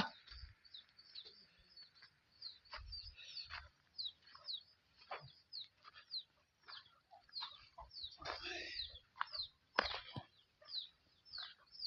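Young poultry peeping: a faint, continuous run of short, high peeps that slide downward, two or three a second.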